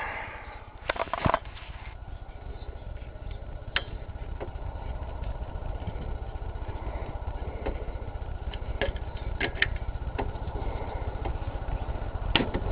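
Scattered sharp metal clicks and taps of hand tools working a hood latch and its clip loose, over a steady low rumble.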